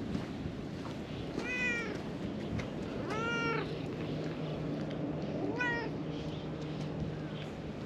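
A cat meowing three times, a couple of seconds apart, each meow rising and then falling in pitch; the middle one is the longest.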